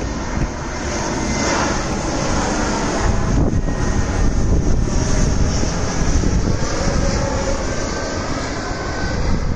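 Airbus A320-family jet airliner flying low overhead on approach with its gear down: steady jet engine noise that builds to its loudest about four seconds in and eases a little toward the end, with a faint whine over it.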